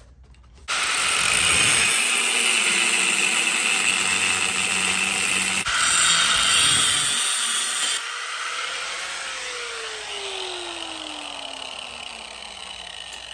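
An abrasive cutting disc on a grinder cuts through steel frame tubing, a harsh, steady grinding noise that begins about a second in. Near the end it comes off the metal and the motor winds down with a falling whine.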